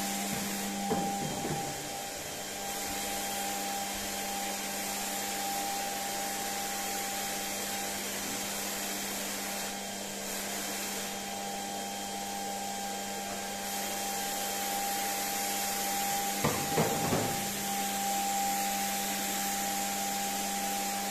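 Paint spray machine running steadily, a motor drone with the hiss of spray, while clear polyurethane varnish is sprayed onto a wooden floor. A few brief sharper sounds stand out about a second in and again about three-quarters of the way through.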